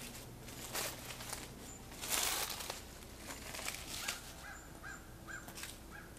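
Footsteps crunching irregularly over dry leaves and debris, loudest about two seconds in. From about three seconds in, a bird calls in a quick series of short, harsh notes, about three a second.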